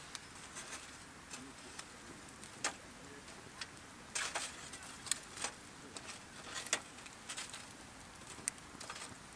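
Wood campfire crackling: irregular sharp snaps and pops, several close together about four seconds in.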